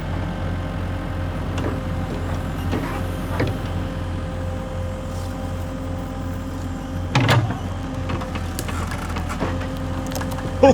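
Small electric motor of a homemade miniature tractor running steadily with an even hum, with a few light clicks and one louder knock about seven seconds in.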